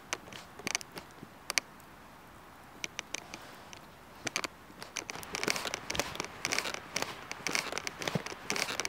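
Wood charcoal fire crackling and popping: scattered sharp pops at first, becoming a dense, louder crackle from about five seconds in.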